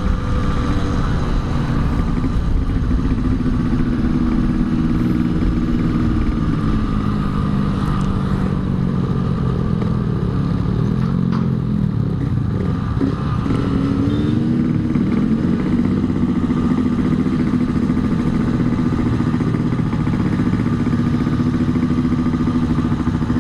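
Yamaha RX-King's two-stroke single-cylinder engine running under way; its pitch drops about halfway through as it slows, then climbs back as it picks up speed again.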